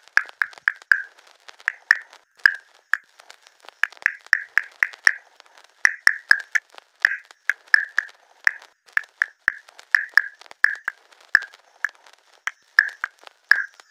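Background music made of short, plucked, drip-like notes near one pitch, each fading quickly, coming two to four a second in an uneven rhythm.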